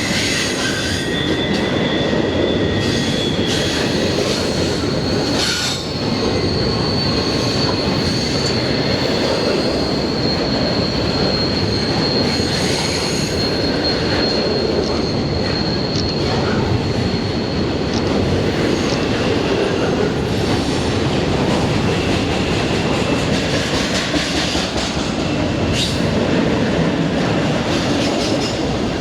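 Norfolk Southern freight train rolling past with a steady heavy rumble of wheels on rail, overlaid by high-pitched wheel squeal that comes and goes, one long squeal tone holding through much of the middle.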